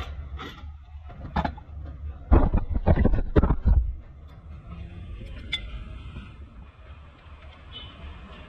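Metal knocks and clanks from hand work on a car's front wheel hub and drive shaft, with a run of heavy knocks about two to four seconds in, then a few lighter clicks.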